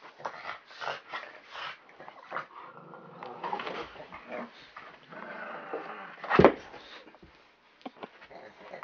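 A Rottweiler and a black Chinese pug growling in rough tug-of-war play over a toy, in short bursts. One loud, sharp sound comes about six seconds in.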